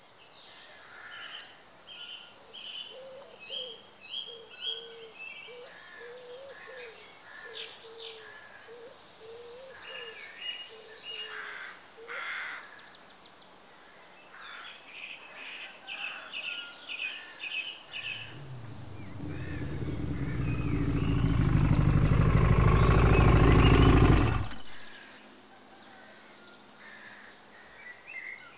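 Birds chirping and calling repeatedly. About two-thirds of the way in, a low engine rumble, plausibly a motorbike, builds steadily louder for about six seconds, then cuts off abruptly.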